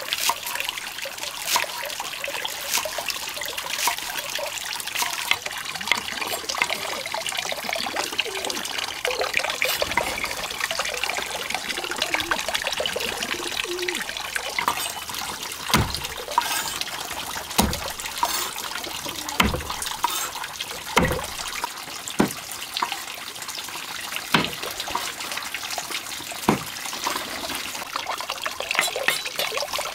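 Water trickling steadily, with the short knocks of a cleaver chopping on a wooden cutting board; in the second half about seven louder knocks come roughly every one and a half to two seconds.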